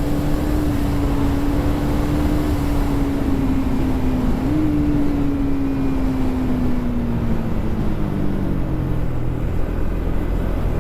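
KTM 390 Duke's single-cylinder engine running through its stock exhaust while riding at speed, under heavy wind and road rumble. Its tone holds steady, dips and steps up in pitch about four seconds in, then slowly falls as the engine eases off.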